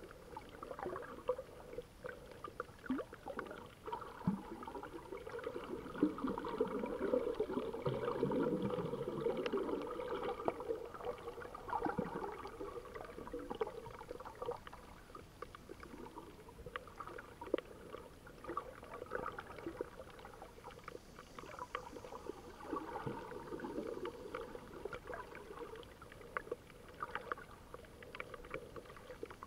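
Muffled underwater noise picked up by a camera submerged in the sea: a sloshing water rush that swells louder for a few seconds about a quarter of the way in, with many scattered clicks and crackles throughout.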